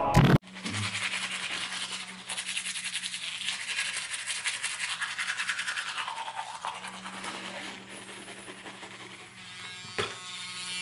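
A toothbrush scrubbing teeth in rapid strokes, about four or five a second, over a steady low hum. A brief burst of music cuts off right at the start, and a single click comes near the end.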